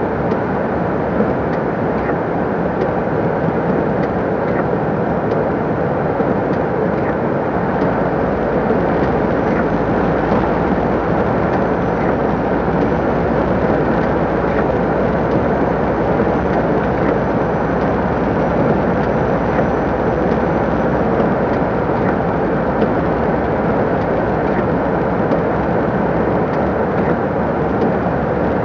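MAN TGS 26.320 lorry driving at a steady speed: a constant diesel engine drone mixed with tyre and road noise, heard from inside the cab.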